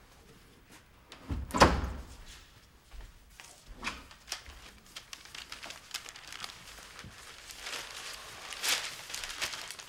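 A room door shut with a thud about one and a half seconds in, then footsteps and light knocks, and near the end the rustle of a newspaper being opened.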